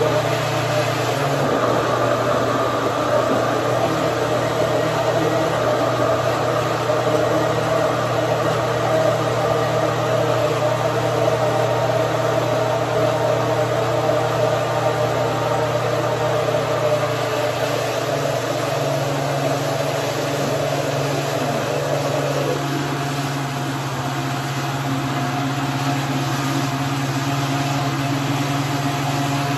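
Countertop blender motor running steadily, churning a thick frozen-fruit smoothie; its tone shifts slightly about two-thirds of the way through.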